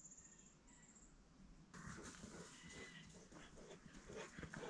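A dog panting faintly in quick, rhythmic breaths, starting about two seconds in. Before that there is near quiet, with a faint high thin tone.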